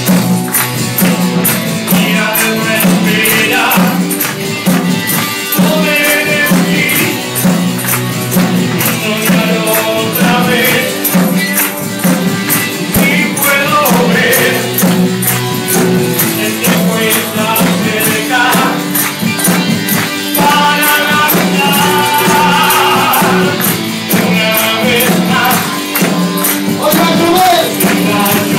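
Live worship song sung into a microphone over instrumental backing, amplified through the hall's PA, with a steady, even percussion beat.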